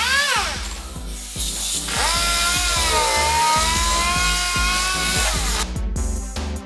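Background music with a steady beat, over which a power tool's whine briefly rises and falls, then holds steady with a high hiss for about four seconds before stopping.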